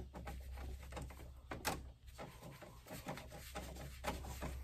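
Screwdriver turning a terminal screw on a breaker panel's neutral bar: scattered light clicks and ticks of metal on metal, one louder click about a second and a half in, over a faint steady low hum.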